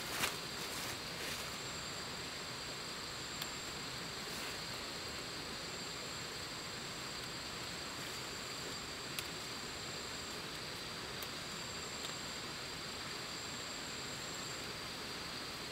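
Steady high-pitched insect buzzing in jungle undergrowth, with leaves rustling and a few sharp snaps as leaves and stems are pulled off branches by hand, the loudest snap right at the start.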